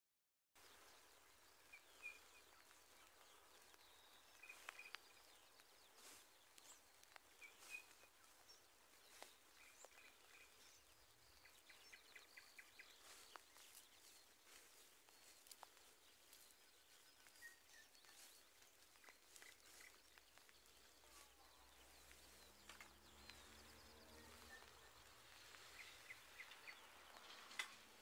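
Faint, scattered songbird chirps with a brief rapid trill, over a quiet hiss of light rain with occasional soft ticks of drops. A faint low hum comes in near the end.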